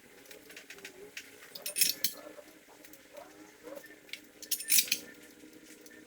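Metal pieces clinking and clattering against each other, with two louder bursts of clinks about two seconds in and again near five seconds.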